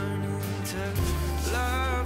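Background music: a song with a singing voice over a steady bass line, the voice coming in about halfway through.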